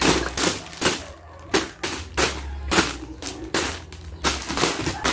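Plastic-wrapped snack packs crinkling as they are handled and put back into a cardboard box: a run of short, irregular crackles.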